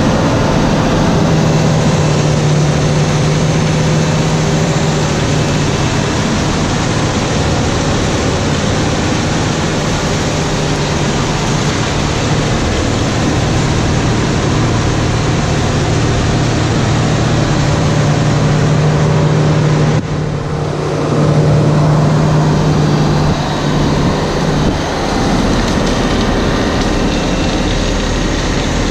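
A tractor-driven wood chipper at work: the Case IH Magnum 340's diesel engine runs under load, powering the PTO-driven chipper as it shreds branches into wood chips. The sound is a steady loud drone over a dense grinding rush. About two-thirds of the way through it dips briefly and then comes back.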